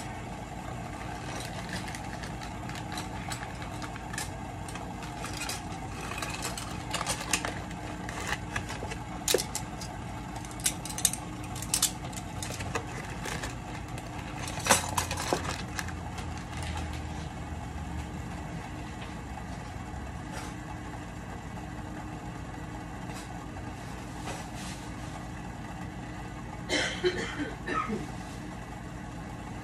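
Scattered clicks, taps and rustling as things are handled at a kitchen counter next to plastic bags, over a steady low hum. The loudest bursts come about halfway through and again near the end.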